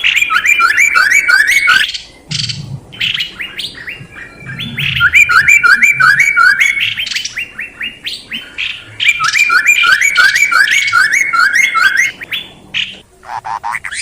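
Songbird calling in three bouts, each a rapid run of short rising whistled notes lasting two to three seconds, with quieter calls between; a lower, different call series comes in near the end. Played as a bird-lure call.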